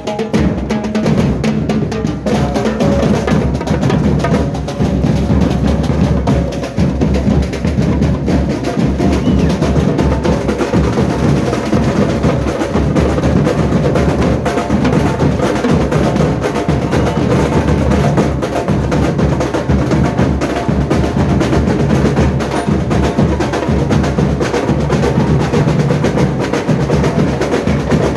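Carnival comparsa band playing loud, continuous percussion music, with bass drums and snare drums driving the rhythm.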